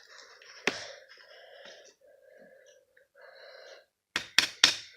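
Handling noise with a faint, breathy hiss and a sharp click about a second in, then three sharp knocks in quick succession near the end.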